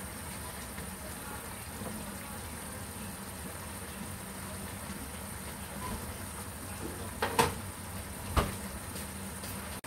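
Eggplant pieces simmering in sauce in a frying pan: a steady bubbling, with a few sharp clicks near the end.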